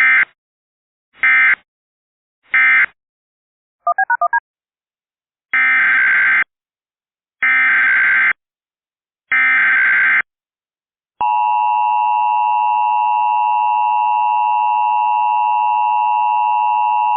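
Emergency Alert System tones. First come three short digital data bursts, the end-of-message code closing one alert. Then a brief run of chirping tones and three longer data bursts, the SAME header of the next alert. From about two-thirds of the way in, the loud steady two-tone attention signal sounds.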